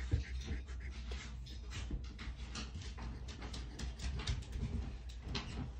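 A scratch-off lottery ticket being scratched with the tip of a pen-style scratcher: a run of short, quick scraping strokes.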